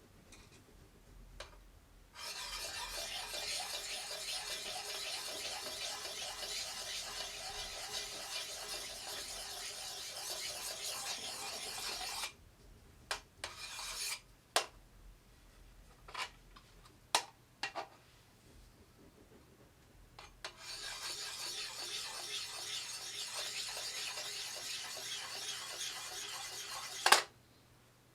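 Fine diamond sharpening stone scraped back and forth along the steel edge of a double bit axe, honing the final edge: two long stretches of steady scraping, about ten seconds and then about six, with a few light clicks between them and a sharp knock near the end.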